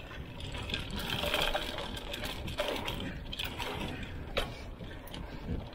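Mountain bike rolling fast down a dirt singletrack: tyres on loose dirt, the bike's chain and frame rattling, and wind buffeting the microphone, with a few sharp knocks over bumps.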